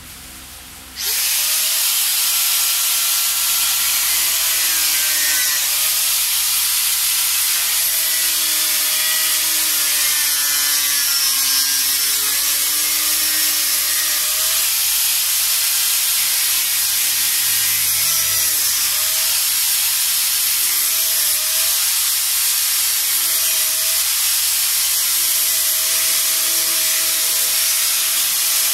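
Small handheld electric grinder trimming the excess edge off a fiberglass helmet shell: a loud, hissing grind that starts suddenly about a second in. Under it a motor whine dips and recovers over and over as the disc bites into the fiberglass.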